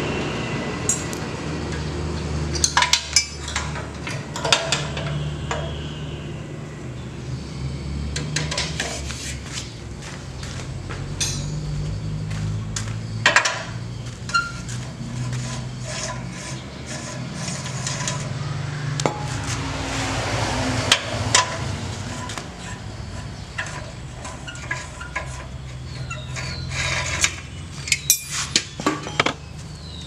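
Hand tools and loose metal parts clinking and knocking against a Honda GX160 engine as its valve cover is pried off: scattered sharp metallic taps and clanks, a few louder knocks among them.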